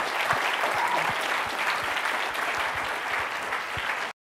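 Audience applauding, a dense, even patter of many hands clapping that cuts off suddenly near the end.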